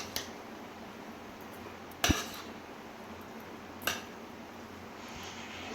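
Metal utensil knocking against a cooking pot of biryani rice three times, the loudest about two seconds in with a short metallic ring, over a steady hiss.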